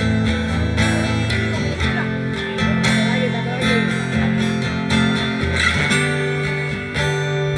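Acoustic guitar strummed in a steady rhythm, playing chords of a song with no singing.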